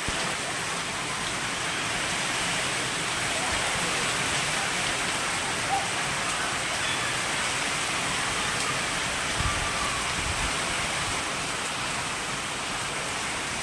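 Steady rain falling and pattering on surfaces, a continuous even hiss.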